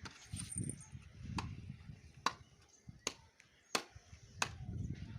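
Five sharp knocks or taps, roughly one a second, over low muffled rumbling.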